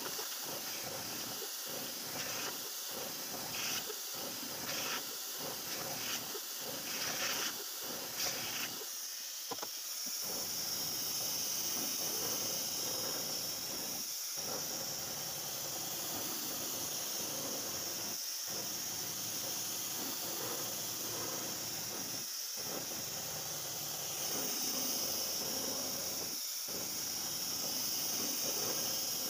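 End mill on a CNC vertical machining center cutting a pocket in a metal block, a steady hissing cut. For the first nine seconds it drops briefly about every 1.2 s. From about ten seconds in it turns to a higher, stronger hiss that dips about every four seconds, as the tool path changes.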